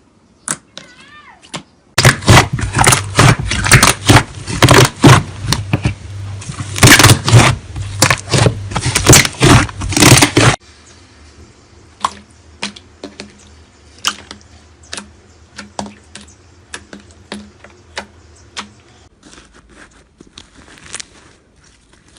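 Slime being squeezed and poked by hand: a run of sticky clicks and pops, dense and loud from about two seconds in, dropping abruptly to quieter, scattered pops about halfway through.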